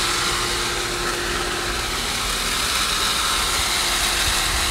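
Pool pump motor running steadily, a continuous hum and hiss. The air leak at the front of the pump has just been fixed.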